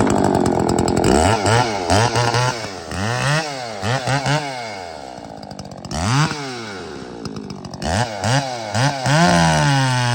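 Muffler-modified Echo CS-680 two-stroke chainsaw being revved over and over, its engine speed climbing and dropping in quick blips. Near the end it settles into steady running at a lower pitch.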